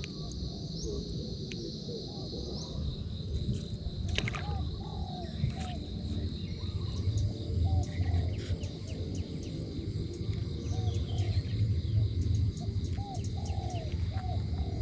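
Countryside evening ambience: short, arched bird calls repeat every second or so over a steady high insect drone and a low rumble.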